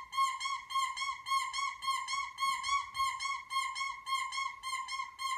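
A high squeak repeated rapidly and evenly, about five squeaks a second, each on the same pitch.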